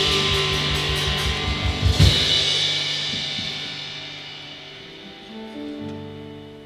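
Live worship band ending a song: rapid drum hits lead to a final loud hit with cymbals about two seconds in, then the chords ring out and fade, with a soft sustained chord coming in near the end.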